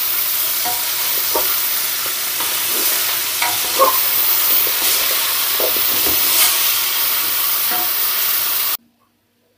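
Raw chicken pieces sizzling in melting butter in a large metal cooking pot: a steady hiss with scattered small pops and spits. It cuts off abruptly near the end.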